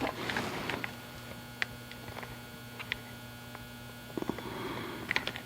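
Steady low electrical hum with a few faint sharp clicks about a second apart, small screws and plastic switch parts being handled.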